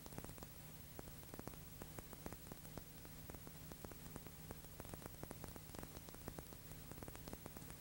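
Faint steady hiss with irregular crackling clicks and a low mains-type hum: background noise of an old film transfer that carries no recorded sound of its own.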